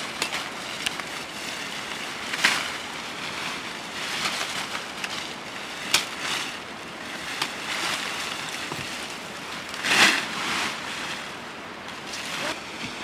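Leafy cut tree branches rustling and swishing as they are handled and pulled together into a pile. A few sharp cracks stand out, the loudest near the end.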